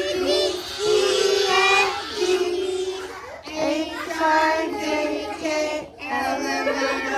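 Children singing a song together in long held notes.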